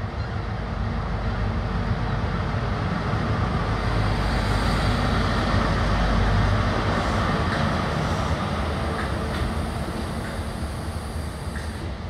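Class 43 HST power car's diesel engine and the train's wheels rumbling as the train runs in past the platform. The sound swells to its loudest about halfway through as the power car goes by, then eases to the lighter rumble of the passing coaches.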